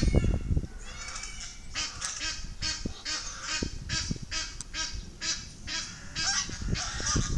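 Egyptian geese giving a long series of harsh, repeated honks, about two a second, starting about two seconds in. It is a territorial display aimed at an intruding swan goose. A low rumble sounds briefly at the very start.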